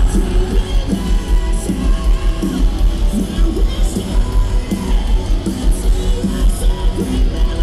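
Live post-hardcore band playing loudly through a PA, heard from within the audience: a steady drum beat and heavy bass with a singer's voice on top.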